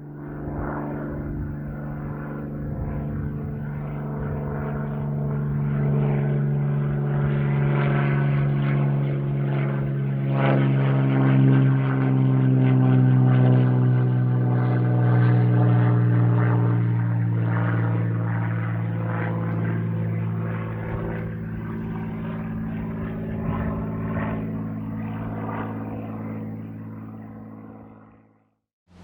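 Single-engine propeller airplane's engine drone. It builds to its loudest about eleven to fourteen seconds in, dips a little in pitch as the plane goes by, then fades away near the end.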